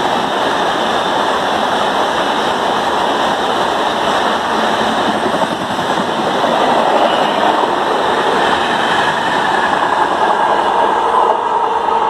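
LHB coaches of an express train passing at high speed: loud, steady noise of steel wheels running over the rails.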